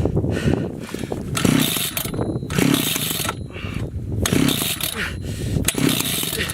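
Two-stroke chainsaw being pull-started over and over, the starter rope yanked about once a second while the engine cranks without catching; the saw is thought to be flooded.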